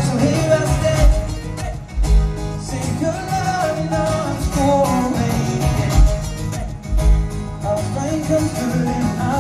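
Live solo performance: a male voice singing over a strummed acoustic guitar layered with a loop pedal, with heavy low thumps on the beat.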